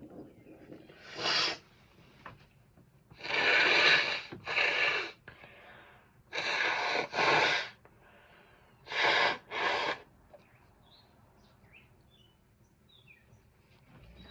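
A person sneezing repeatedly in an allergic reaction to something in the room: one short sneeze, then three sneezes in quick double bursts a couple of seconds apart.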